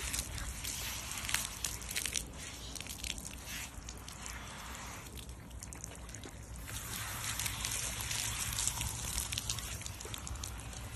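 Water spraying from a garden-hose nozzle onto a wet dog's coat and splashing and dripping on wet pavement. The spray eases off for a few seconds midway, then picks up again.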